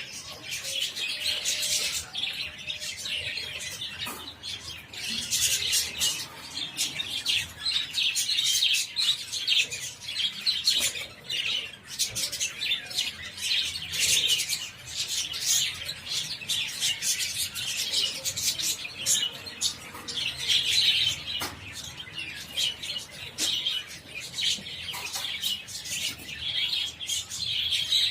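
A flock of budgerigars chattering, with a dense, unbroken mix of quick chirps and warbles.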